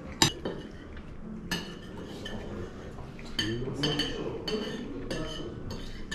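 Metal spoons clinking against ceramic plates while eating, with a sharp, loud clink about a quarter of a second in and a quick run of ringing clinks in the second half.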